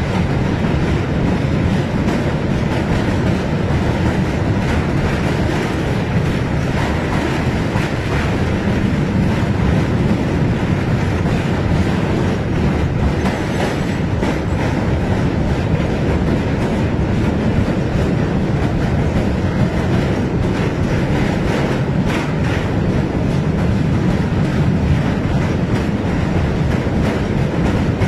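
Pakistan Railways passenger train running across a steel truss bridge: a loud, steady rumble of wheels on rail, with the clickety-clack of rail joints.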